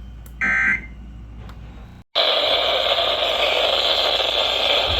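A short EAS digital data burst, the shrill two-tone warble of a SAME code, sounds once about a third of a second in. It is the end-of-message signal after the warning. After a brief dropout about two seconds in, a steady, loud hiss of radio static sets in.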